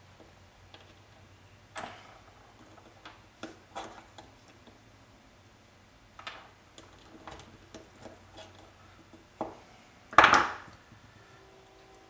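Small greased gears in a microwave turntable motor's gearbox being pried loose and lifted out with a metal pick: scattered light clicks and taps, with one louder, longer rattle near the end.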